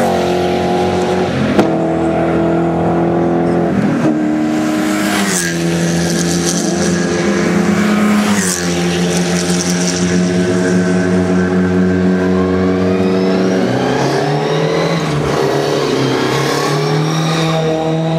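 Race car engines running hard on the straight, several cars heard at once; the engine note drops sharply a few times at gear changes, with another car accelerating, its pitch climbing, near the end.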